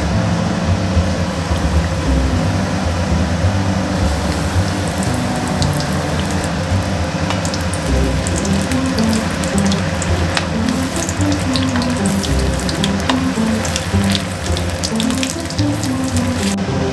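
Batter-coated potato vadas deep-frying in hot oil: a steady sizzle with sharp crackles and pops that thicken from about five seconds in, and drop away just before the end. Background music with a plucked melody plays underneath.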